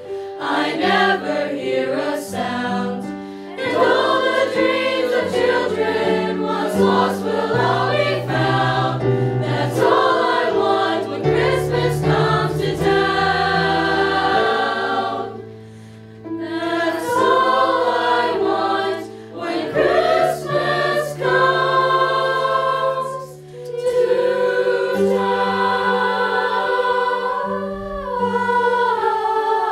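High school choir singing a holiday song in harmony, with sustained low notes beneath the voices. The singing breaks briefly between phrases about halfway through and again about three-quarters of the way through.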